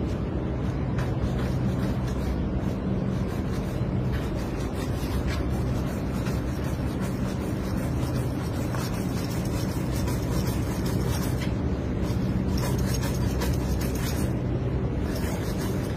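A steady low engine hum, with intermittent scraping and rubbing as a thin metal strip is worked along a metal pipe.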